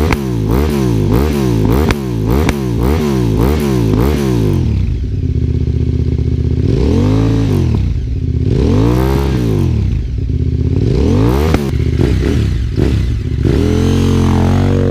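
KTM 950 SM's V-twin breathing through round Dominator aftermarket silencers. It is blipped in quick rapid revs for the first four seconds or so, then settles to idle with three slower, longer revs. Near the end it pulls away, rising steadily in pitch as it accelerates.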